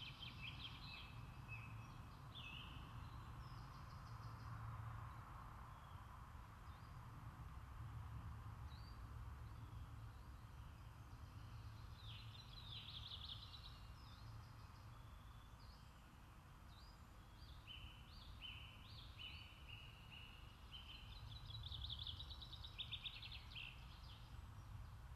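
Faint songbirds singing in short phrases and trills, over a steady low background rumble.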